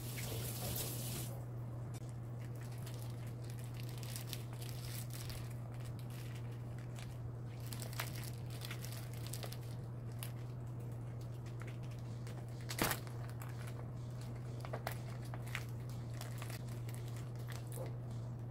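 Thin plastic pouch of basil pesto crinkling and crackling as it is handled and squeezed out, with a sharp click about thirteen seconds in. A steady low hum runs underneath.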